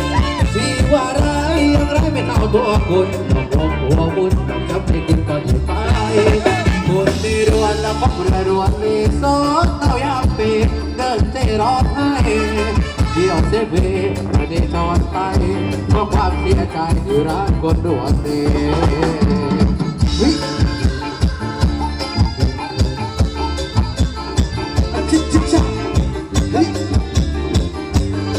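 Live Thai ramwong band music: a steady, driving percussion beat under a wandering melody line, played continuously for dancing.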